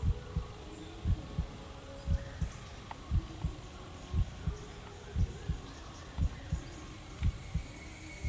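A heartbeat: steady paired low thumps, lub-dub, a little under one beat a second.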